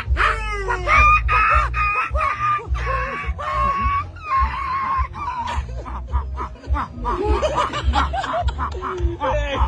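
A run of animal-like vocal calls: quick squawks, then long high whistling notes for a few seconds, then chattering, laugh-like calls, over background music with a steady low beat.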